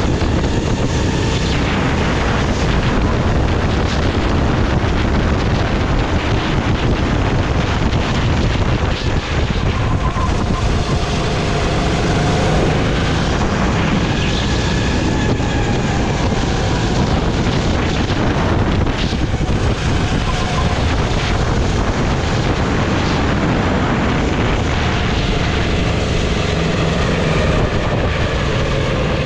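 Go-kart running at speed, its engine note rising and falling through the corners, mixed with heavy wind buffeting on the onboard microphone.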